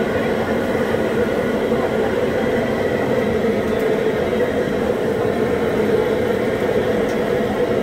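Steady din of a busy street-food stall and the street around it, even throughout, with no single sound standing out.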